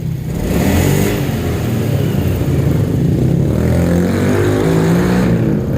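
Honda Scoopy 2017 scooter engine revved with the throttle, its pitch rising and falling. It picks up at once, a sign that the throttle response is restored after the worn roller housing was replaced and the ECU reset.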